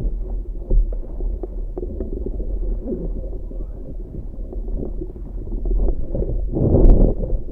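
Wind rumbling and buffeting on the microphone aboard a small sailing dinghy, with a louder gust near the end.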